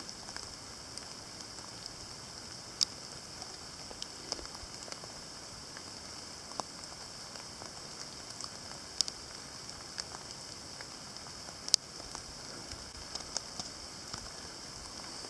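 Rain falling in woodland: a steady high hiss with scattered sharp ticks of drops striking close by.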